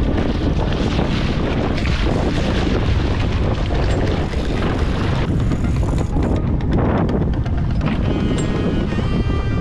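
Heavy wind buffeting on the microphone over the low rumble of the boat. Background music with held notes rises up near the end.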